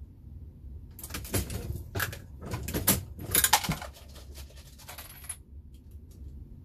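Dillon Square Deal progressive reloading press being worked by hand: a run of metallic clicks and clinks of brass for about four seconds, starting about a second in and stopping suddenly, with a few faint ticks after.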